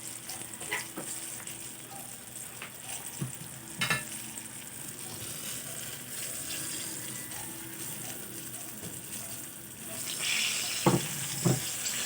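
Eggplant frying in hot oil in a pan: a steady sizzle, with a few sharp knocks of a utensil against the pan. The sizzle grows louder about ten seconds in.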